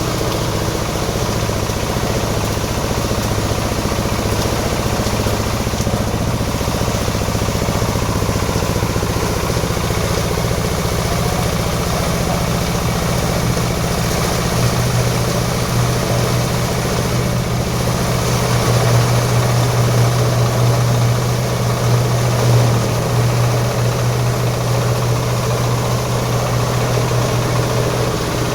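Plywood and veneer waste grinding machine running steadily, a low hum over a noisy grinding haze. The hum grows stronger and a little louder about halfway through.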